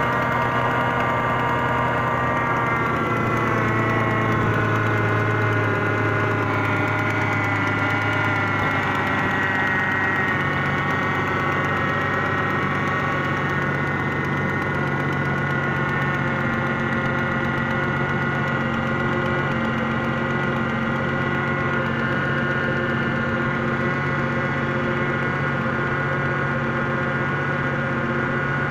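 2001 Ford Mustang's 3.8-litre V6 engine idling with a knocking noise, a knock that goes away once the engine is warm. The engine note shifts in pitch about a third of the way in.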